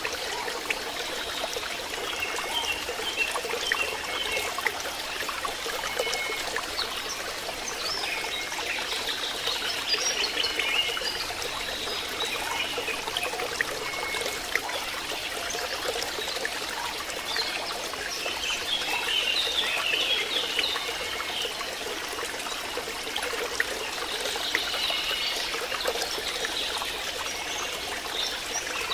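Steady trickle of running water, with short high chirps now and then.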